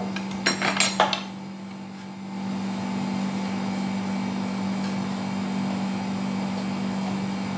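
A few quick clatters and knocks of things being handled in a kitchen, about half a second to a second in, over a steady appliance hum. The hum gets a little louder from about two seconds in.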